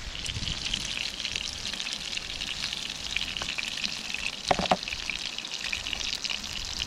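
Hot oil sizzling and crackling steadily as pieces of roasted breadfruit fry, with a short knock about halfway through.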